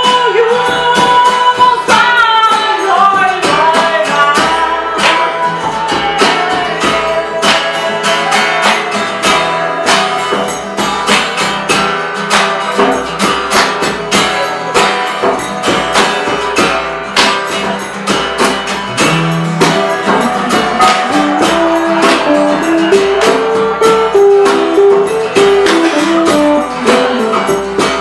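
Live ethnic-music ensemble playing: acoustic guitar and bass guitar over a busy, even beat of hand drums and percussion, with a melody line gliding and stepping above it.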